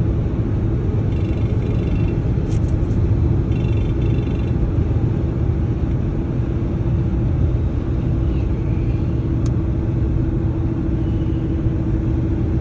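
Steady road and tyre rumble inside a moving car's cabin at highway speed, with a steady low hum running underneath.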